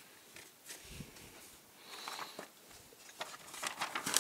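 Soft rustling of paper being handled and tucked in as tinder around firewood kindling, growing into louder paper crinkling near the end.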